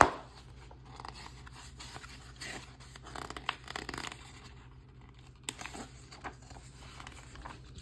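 Glossy magazine pages being handled and turned: irregular paper rustling and sliding, with a sharp click at the start and a couple of short ticks later.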